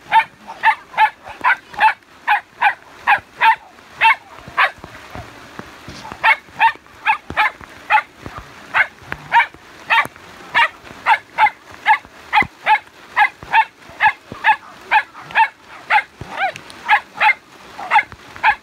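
A dog barking over and over in a steady rhythm, about two short barks a second, with a brief pause about five seconds in.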